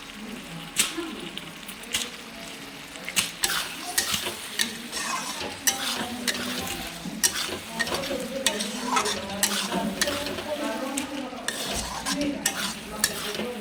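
Mixed vegetables sizzling as they fry in a pan while a spatula stirs them, scraping and knocking against the pan at irregular moments.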